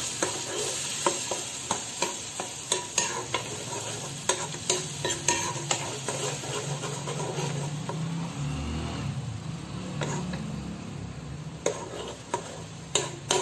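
Thick ground tomato and garlic paste sizzling in hot oil in an iron pan while a spoon stirs it, scraping and clicking against the pan every half second or so. The sizzle eases off a little as it goes.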